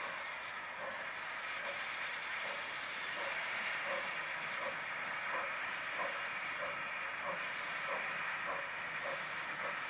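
Double-headed steam locomotives, an MZA 1700 and a Mikado, working under steam: an even exhaust beat of about one and a half chuffs a second over a steady hiss of steam, growing slightly louder.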